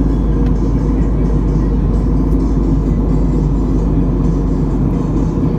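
Airliner cabin noise: a steady drone of jet engines and rushing air heard from inside the passenger cabin.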